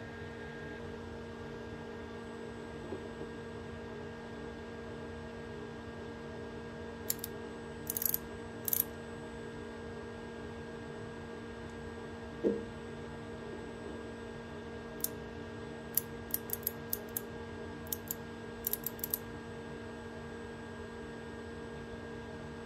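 Outside micrometer's ratchet thimble clicking in two short runs of small, sharp clicks as it is turned down onto the part, over a steady electrical hum. A single brief knock comes about halfway.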